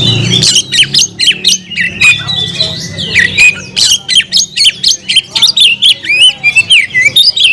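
Oriental magpie-robin (kacer) singing loudly and vigorously: a rapid, unbroken string of varied notes, with harsh squawk-like strokes mixed with short whistled glides. It is the aggressive song of a bird calling out a rival.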